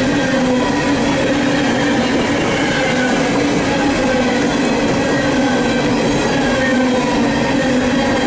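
CSX coal train's hopper cars rolling past close by: steady, loud noise of steel wheels running on rail, unbroken throughout.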